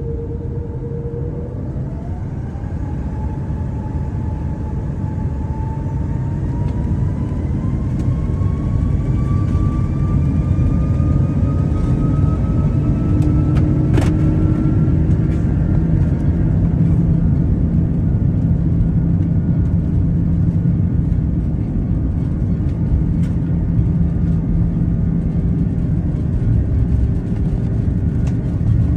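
Airbus A330-300 jet engines spooling up to takeoff power: a steady low rumble that grows louder, under a whine that climbs in pitch through the first half. A single sharp click comes about halfway through.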